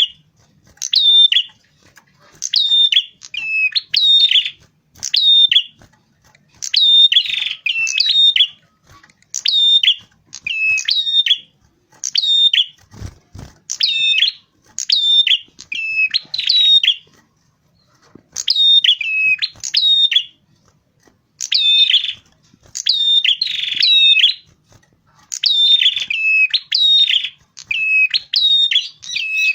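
Prenjak kepala merah, a small Southeast Asian prinia, singing continuously. It gives loud, sharp chirps that each drop quickly in pitch, repeated in quick runs of several notes with short pauses between runs.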